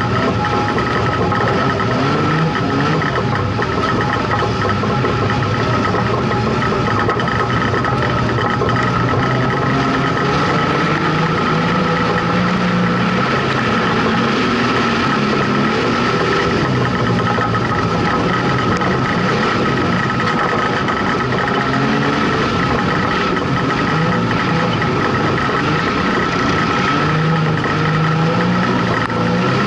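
Street stock race car's engine heard from inside the cabin, its pitch rising and falling in long cycles as it accelerates and backs off around the dirt oval. A steady high whine runs under it.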